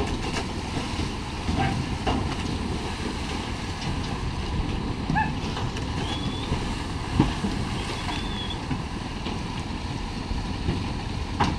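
Cattle jumping from a wooden cattle barge into river water and splashing as they swim off, over a steady rumbling noise. A sharp knock comes about seven seconds in and another near the end.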